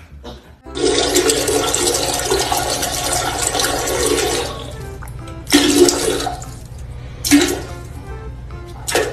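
Toilet flushing: a loud rush of water starting about a second in and lasting about four seconds, followed by a few shorter rushes.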